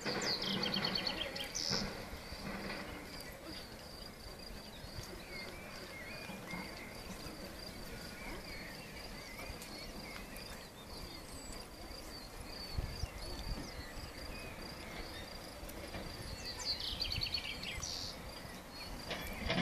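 Insects chirring steadily at a high pitch. A songbird sings a short trilled phrase of rapid notes near the start and again near the end, and there is a brief low rumble about two-thirds through.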